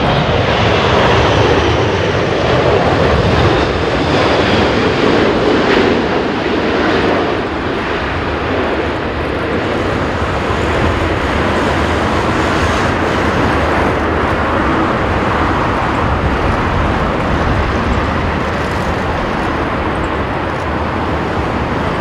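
Engine Alliance GP7200 turbofans of an Emirates Airbus A380-861 running at approach power as the airliner passes close by, with a falling whine in the first few seconds, then a steadier, slightly quieter jet noise as it heads for touchdown. Gusty wind rumbles on the microphone throughout.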